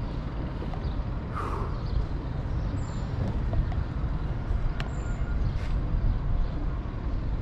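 City street ambience: a steady low rumble of traffic, with a few sharp clicks and short high squeaks over it.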